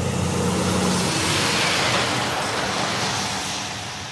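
Semi-trailer truck driving past on a highway: engine hum and tyre rush swell as it comes by, then ease off as it moves away.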